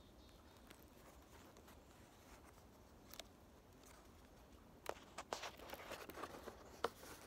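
Near silence, then from about five seconds in a few faint crinkles and rustles of a hand-bound picture book's paper page being turned.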